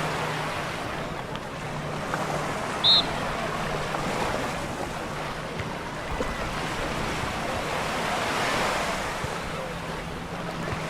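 Small waves washing onto a sandy beach in a steady hiss, swelling briefly near the end, with some wind on the microphone. About three seconds in there is one very short high-pitched chirp.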